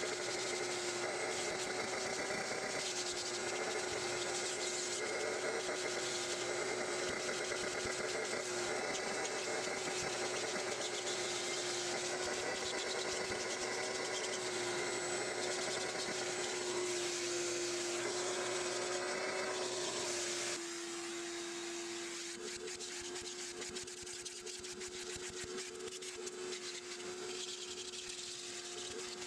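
Shop vacuum running steadily with a constant motor hum and a rushing hiss as its crevice tool sucks and rubs over car floor carpet. About two-thirds of the way through, the sound drops a little in level and loses some of its hiss.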